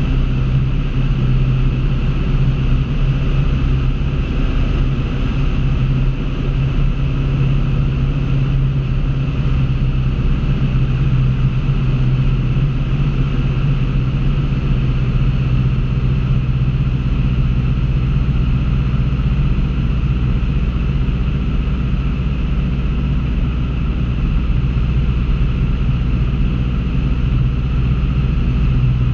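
Single-engine light airplane's piston engine and propeller droning steadily in flight, heard inside the cockpit.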